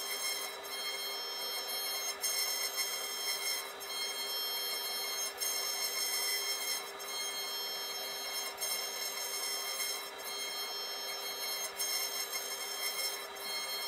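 CNC router spindle running with a steady high whine while a tapered carving bit cuts a relief into softwood, giving a rough cutting hiss under the whine. The sound dips briefly at regular intervals of about a second and a half.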